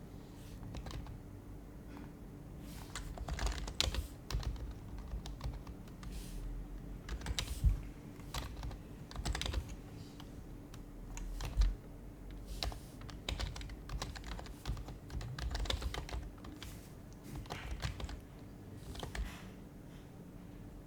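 Typing on an HHKB Professional HYBRID Type-S keyboard: its silenced Topre switches give soft, muted keystrokes in irregular bursts with short pauses. A couple of louder single keystrokes come about eight and twelve seconds in.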